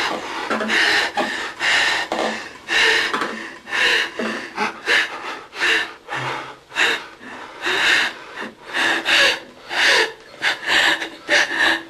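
A woman sobbing hard, in a run of gasping, breathy sobs that come faster and closer together in the second half.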